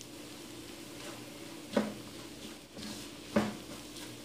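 Onions and spice powders frying quietly in coconut oil in a pan on a low flame, a faint steady sizzle. A spoon knocks against the pan twice, about two seconds in and again near three and a half seconds.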